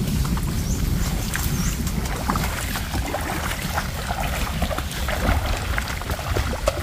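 Steady outdoor rumble of rain and wind on the microphone, with scattered light ticks of drops and two faint high chirps in the first two seconds.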